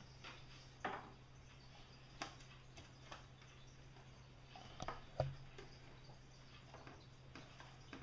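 Scattered light clicks and taps from handling small wax-dipped cotton fire starters, the sharpest a little after the midpoint, over a steady low hum.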